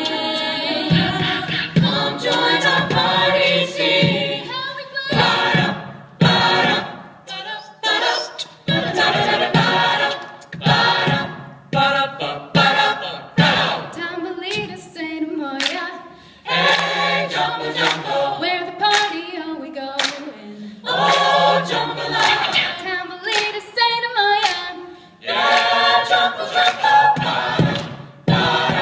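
Amplified a cappella vocal ensemble of mixed male and female voices singing a pop song in harmony into microphones, with no instruments.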